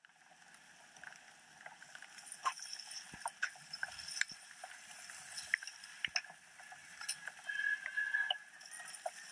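Mountain bikes passing on a dirt trail: irregular clicks and rattles from chains and freewheel hubs over a steady hiss, with a brief high squeal near the end.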